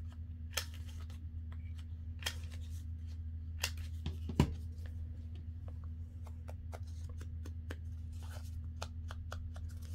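Corner rounder punch clicking as paper tag corners are punched: several sharp clicks in the first half, the loudest about four seconds in, followed by light paper handling and small ticks, over a steady low hum.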